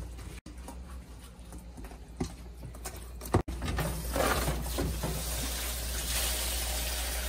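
Wet raw seafood squelching and knocking against a stainless steel pot as it is handled. About three and a half seconds in, a steady hiss from a steamer pot on a gas stove takes over, with a few clatters as the seafood is dropped into the steamer basket.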